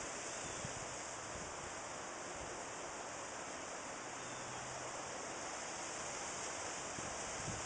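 Steady, even outdoor background hiss with no distinct sounds in it.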